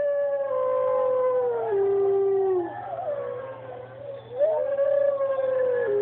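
Drawn-out howling: long held notes that slide down in pitch, fading about halfway through, then a rising howl about a second and a half later that is held and drops lower near the end.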